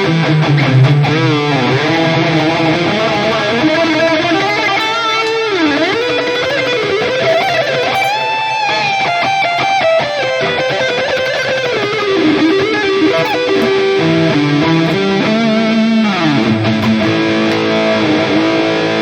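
Electric guitar playing a lead line through a digital modeling unit: held notes with wide vibrato, slides and bends, climbing to a high sustained bend about eight seconds in.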